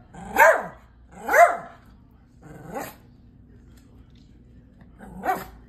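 Small senior dog barking: two loud barks about a second apart, a fainter one a little later, and one more near the end.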